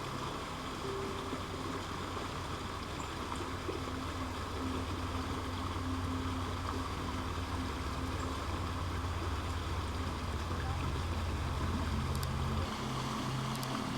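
Steady rushing of creek water, with a low hum underneath that cuts off near the end.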